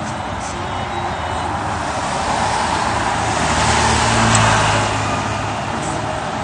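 Street traffic noise, with a motor vehicle passing close by. It swells to its loudest about four seconds in, then fades.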